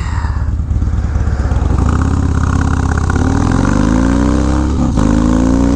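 Harley-Davidson Dyna's V-twin engine under way, running steadily, then pulling with rising pitch about three seconds in. A brief break near the end, typical of an upshift, is followed by the pitch climbing again.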